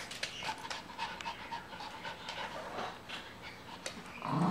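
Two small dogs, a Maltese-poodle mix and a Pekingese–Shih-Tzu mix, panting in quick short breaths as they wrestle in play, with light scuffling. A louder vocal sound starts right at the end.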